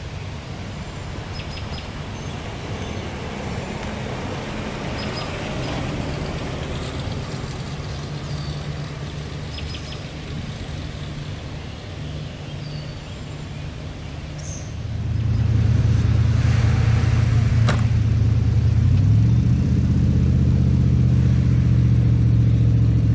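The 1938 Buick Y-Job's straight-eight engine running low and steady as the car cruises slowly past, with small bird chirps above it. About fifteen seconds in, a much louder steady low hum takes over, its pitch stepping up a few seconds later.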